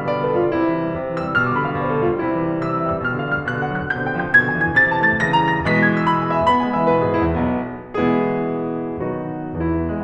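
Background piano music: struck notes and chords, the melody climbing through the middle, a brief dip just before a new chord near the end.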